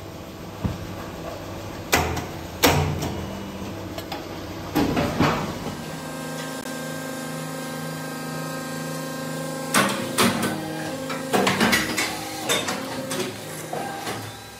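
Toshiba cold-chamber die-casting machine at work: sharp metal clanks and knocks, then a steady machine hum holding several pitches for about four seconds, then a run of rattling metal clatters.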